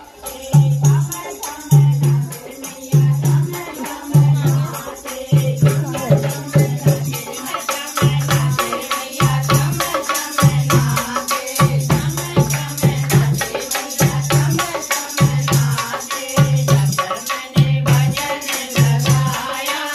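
Dholak hand drum beating a steady rhythm of deep strokes, with hand-clapping, a jingling rattle and women singing a devotional kirtan.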